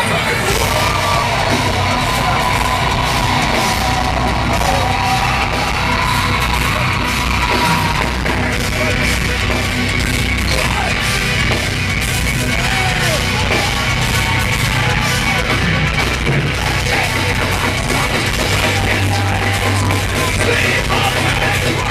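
Live folk metal band playing loud through a festival PA, with the crowd yelling over it.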